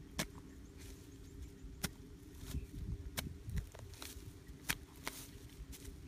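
Long-handled metal digging tool chopping down into soil: four sharp strikes roughly a second and a half apart, with softer scuffs of loosened dirt between them.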